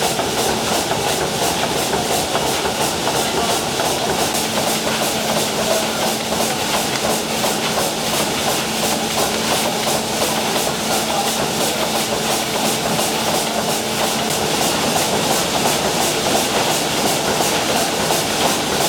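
An 800 hp triple-expansion steam engine running steadily at close range, its cranks and rods turning with a fast, even rhythmic clatter. A steady hum runs under it and stops about three-quarters of the way through.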